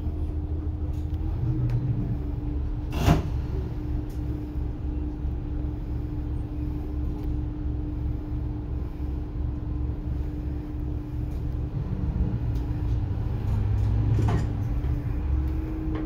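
Diesel railcar engine running steadily at a standstill, with a constant hum, heard from inside the front car. There is a sharp clack about three seconds in and a fainter one later, and the engine note swells near the end as the train starts to pull away.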